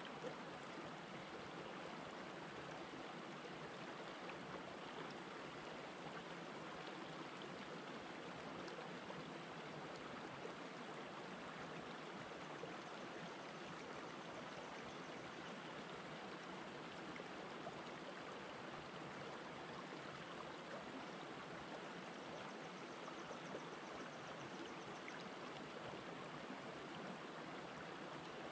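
A shallow rocky stream running over and between boulders: a faint, steady wash of flowing water.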